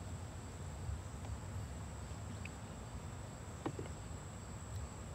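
Faint outdoor background: a steady low rumble and a thin, steady high-pitched whine, with a single light click a little past halfway.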